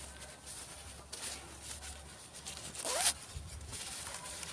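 Nylon tarp stuff sack rustling and rasping against a hiking backpack as it is pushed in, with the loudest rasp about three seconds in.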